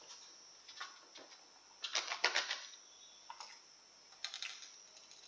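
Scattered light clicks and short rustles of food and tableware being handled at a table, with a louder cluster of them about two seconds in.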